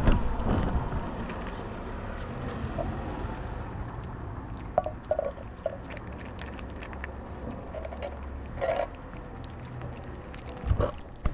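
A kitten chewing and crunching cat food from a plastic tray close to the microphone, with a couple of low thumps, one at the start and one near the end.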